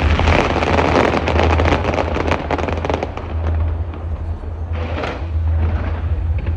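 Fireworks going off: a dense volley of rapid crackling bangs for about three seconds, easing off, then another burst about five seconds in, over a steady low rumble.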